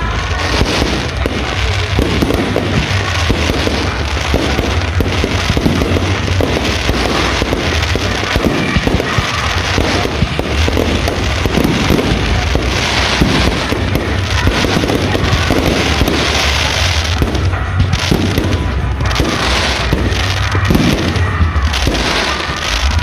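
Fireworks barrage in rapid continuous launch: many shells firing and bursting in dense, overlapping bangs and crackles with no pause.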